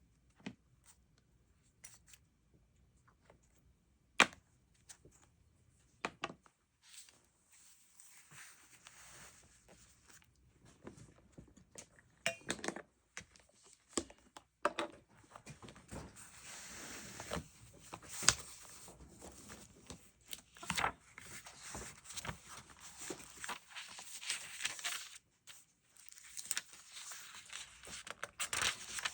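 Hands working on a paper planner: a few light taps and clicks, then from about seven seconds in continuous paper rustling broken by sharp clicks.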